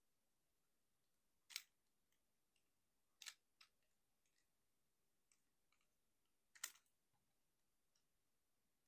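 Plastic toy-robot parts clicking and snapping as the figure is transformed by hand: four sharp clicks, two of them close together, with fainter ticks between, over near silence.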